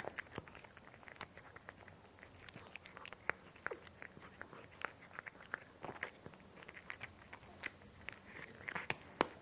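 A cat eating dry kibble: irregular crisp crunches and clicks as it bites and chews the pieces, several a second with short pauses.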